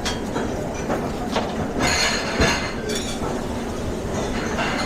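Restaurant kitchen clatter: dishes and utensils clinking, loudest about two seconds in, over a steady low rumble.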